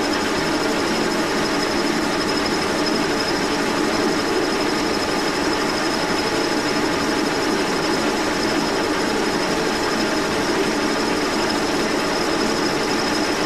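Brown & Sharpe No. 2 horizontal milling machine running steadily, its arbor-mounted cutter milling a hard, old cast-iron crank handle, with a thin high whine over the steady machine noise.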